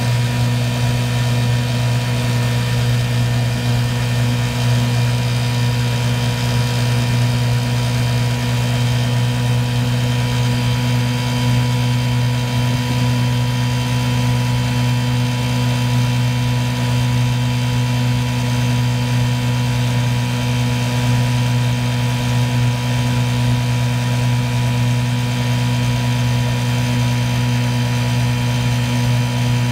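1955 Johnson CD-12 5.5 hp two-cylinder two-stroke outboard motor running under way at a steady, unchanging speed, very smooth, with water rushing in the wake behind it.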